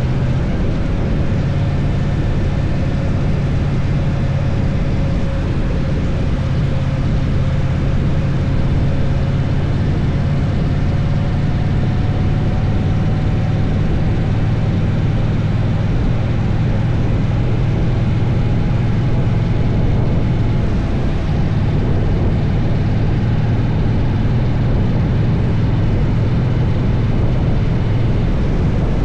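Triumph Bonneville T120's 1200 cc parallel-twin engine running steadily while riding, with a faint higher tone rising gently midway.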